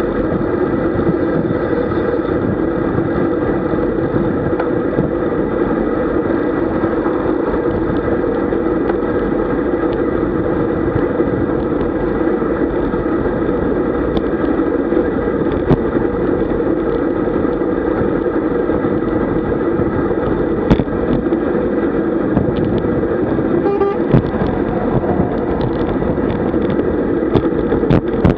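Steady rushing of wind over the microphone of a camera riding on a road bicycle at about 40 km/h, mixed with tyre and road noise, with a few light clicks in the second half.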